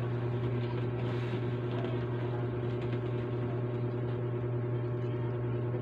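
Steady low electrical hum of a running appliance or motor, holding one pitch without change.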